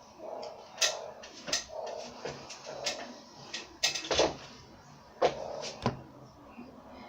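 A run of irregular sharp clicks and knocks, about a dozen in all, of hard parts and tools being handled during a ceiling-fan installation.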